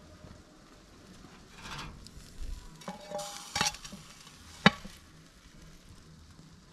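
A roast leg of lamb being lifted off a metal grill grate into a frying pan: a few scrapes and clinks of metal, one with a short metallic ring, and a sharp knock about two-thirds of the way through.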